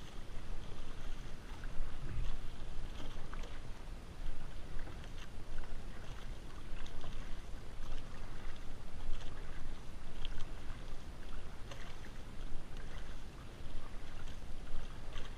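Outrigger canoe paddles dipping and pulling through the water, with repeated splashes roughly every second and water washing along the hull.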